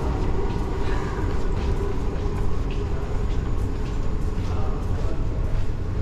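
Metro platform ambience: a steady low rumble with regular walking footsteps and faint voices.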